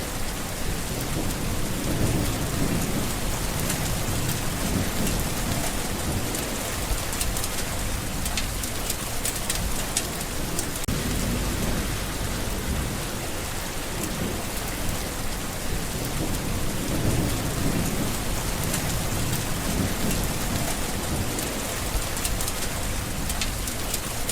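Steady rain pattering on green leaves, with many fine drop ticks, while low rumbles swell and fade every few seconds.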